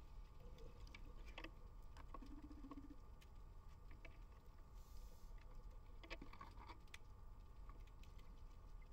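Near silence underwater, heard through a camera housing: a low rumble with scattered faint clicks and ticks, and a brief hiss about five seconds in.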